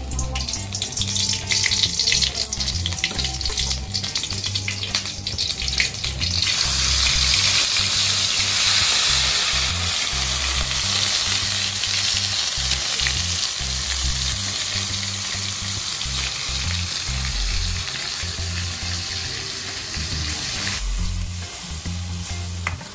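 Hot oil in a steel wok crackling and popping as lemongrass fries. About six seconds in, a wet ground spice paste goes in and the oil breaks into a loud, steady sizzle that slowly eases toward the end, stirred with a metal ladle.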